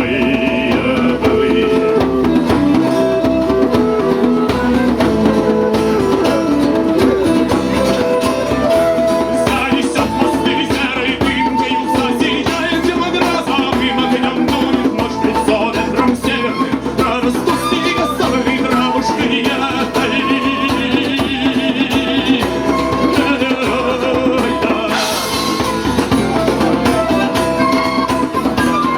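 A live band plays an instrumental passage of a song between sung verses, a melody over guitar and drums.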